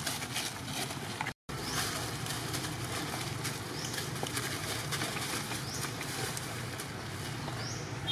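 Steady outdoor background with light rustling of dry leaves as young macaques scamper and wrestle on them, and a short rising chirp repeating every two seconds or so. The sound cuts out for an instant about a second and a half in.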